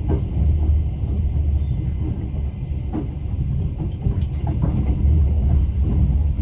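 Passenger train carriage rumbling along at speed, heard from inside: a steady low running noise with a few sharp knocks of the wheels over rail joints.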